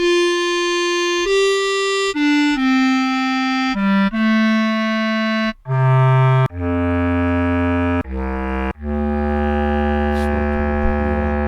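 Sampled basset horn playing a string of single held notes, one after another, mostly stepping down in pitch into its low register.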